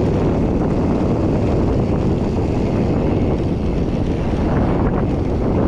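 Wind buffeting the microphone of a camera carried on a moving mountain bike: a steady low rumble.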